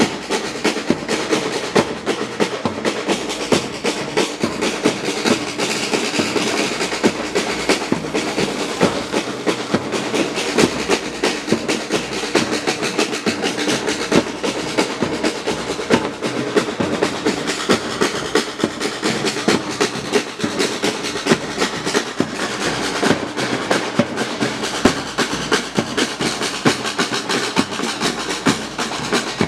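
Batucada drum ensemble playing a fast, dense samba-style rhythm that keeps going without a break.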